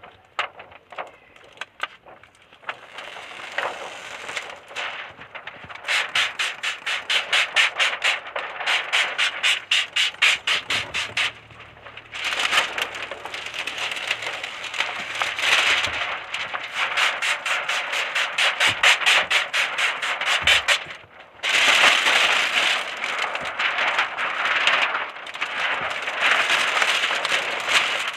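Plastic car window-tint film crinkling and rustling as it is handled and pulled at a car's side window, with a quick run of rapid crackles partway through and louder continuous rustling near the end.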